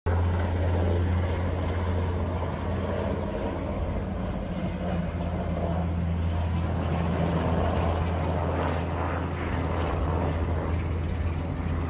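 Aircraft engine noise: a steady low drone with no break.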